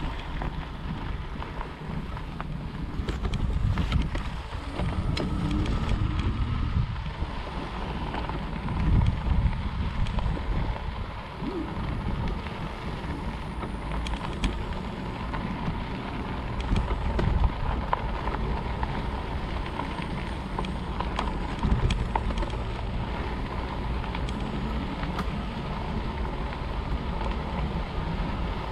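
Riding noise from a RadRover electric fat-tire bike on a sandy dirt trail: wind buffeting the microphone and tyre rumble over the ground, with a steady faint whine and occasional knocks from bumps.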